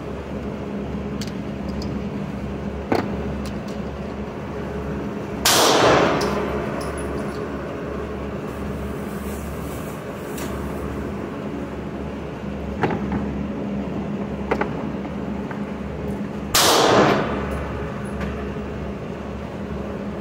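Steady hum of an indoor range's ventilation, with two loud reverberant gunshots about eleven seconds apart, from other lanes. A few small clicks of cartridges and magazines being handled on the bench.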